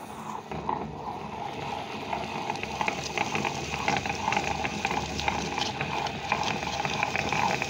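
Table-top wet grinder running, its stone rollers turning in the steel drum and churning thick urad dal batter: a steady churning noise with a dense patter of small clicks.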